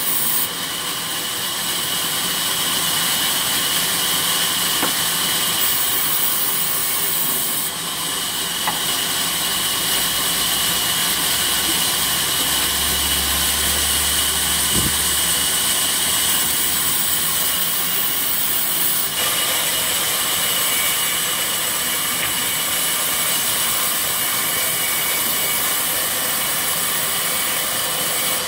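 Sawmill band saw running and slicing rain tree wood planks: a steady machine noise with a high tone and hiss.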